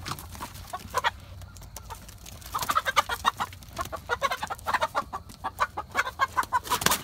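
Chickens clucking and squawking in quick, agitated series during a rooster's mating scuffle with a hen, starting about two and a half seconds in after a few scattered scratches and clicks. A brief loud rustle near the end.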